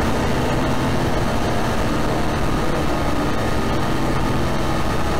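Dense, distorted electronic music: many stacked low droning tones under a noisy haze, loud and steady throughout.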